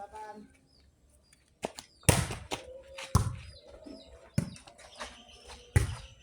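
Four sharp, loud hits about a second apart, over small birds chirping.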